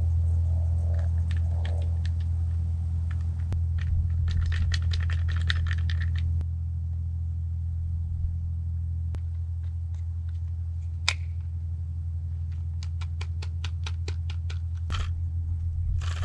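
Small clicks and rattles from a chalk line reel being handled and worked: a cluster of clicks about four seconds in, a single sharp click near the middle, and a run of quick clicks near the end. A steady low rumble lies under it all.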